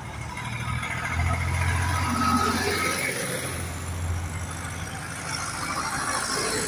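Tractor engines running as tractors drive past one after another. One passes close with a steady low drone about a second to four seconds in, and a green John Deere tractor draws near towards the end.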